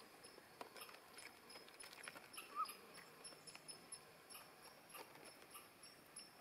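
Near silence with faint scattered clicks and taps as a Canada jay perched on a man's lap pecks at pie crumbs in his fingers, and a faint short chirp about two and a half seconds in.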